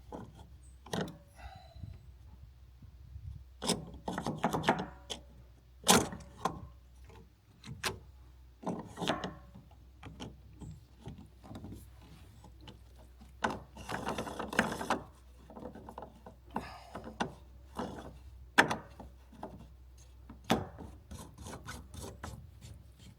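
Hand tools scraping and tapping on stone and lime mortar, in short irregular passes with a few sharp knocks, the sounds of pointing a stone wall.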